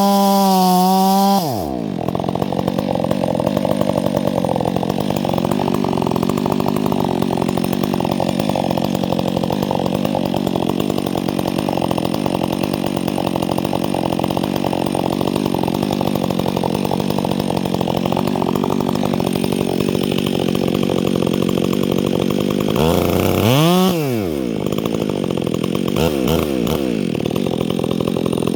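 Gas chainsaw running at high revs, then dropping to idle about a second and a half in. It idles steadily, is revved up once briefly near the end, and gets two small throttle blips just after.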